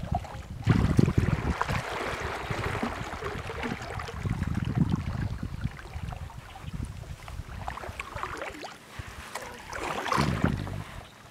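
Paddle strokes from a kayak on calm lake water: blades dipping in and pulling through, with water splashing and dripping, in uneven surges at about one second in, two to three seconds in, around five seconds and near the end.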